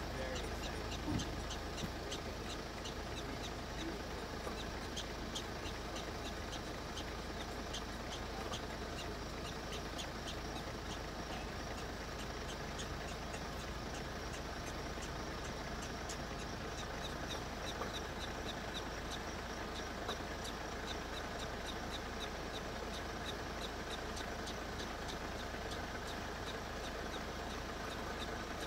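Steady low rumble of an idling vehicle engine, with a fast run of faint, high, evenly spaced ticks over it, about three a second in places.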